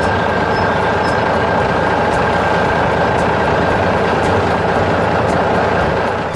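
Heavy truck engine running steadily at a constant level, with a faint steady whine over it.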